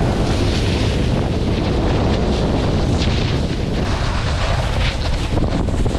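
Wind buffeting a moving camera's microphone at riding speed, a steady low roar, under the hiss and scrape of snowboard edges carving through snow.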